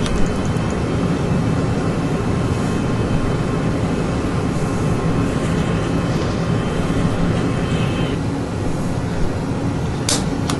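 Steady low rumble, with a sharp click near the end from the water heater's piezo igniter button being pushed to spark the gas pilot.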